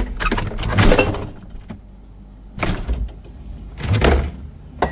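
Refrigerator door being handled and pushed shut: knocks and rustling in three bursts, then a sharp click near the end.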